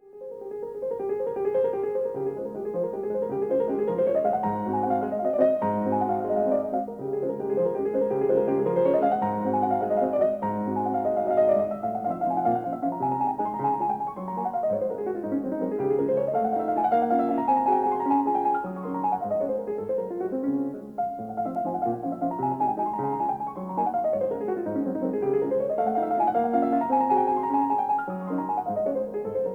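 Solo piano music playing flowing arpeggios that rise and fall in repeated waves over steady low notes.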